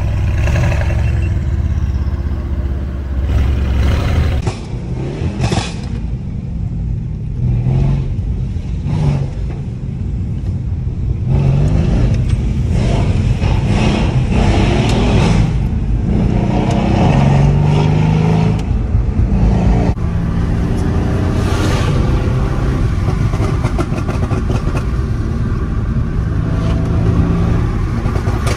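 Mercedes-AMG C63 S twin-turbo V8 engine running and revving up again and again as the car accelerates. It is heard first from outside the car, then from inside the cabin.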